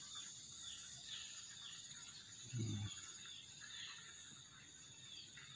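Faint outdoor ambience of insects and birds: a steady high insect drone with repeated short chirps over it. About two and a half seconds in there is one brief low bump or hum.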